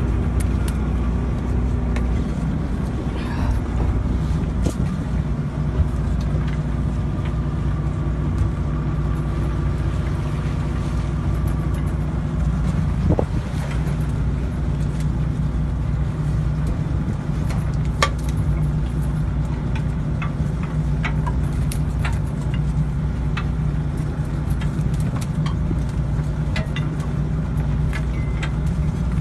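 A fishing boat's engine running steadily, with scattered short clicks and knocks over it.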